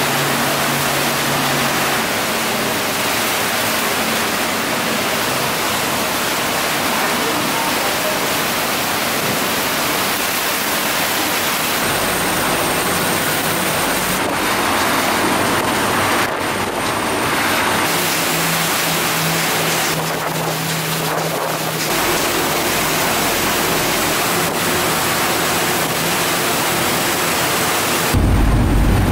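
Torrential rain hissing steadily over harbour water, with a faint low engine hum from passing boats at times. A loud low rumble comes near the end.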